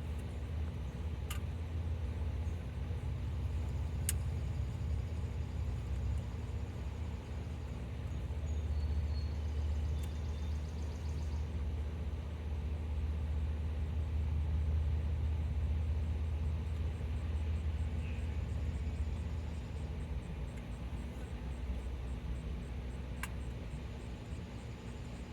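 Wind rumbling on the microphone, a steady low roar that swells and eases, with a few faint sharp ticks.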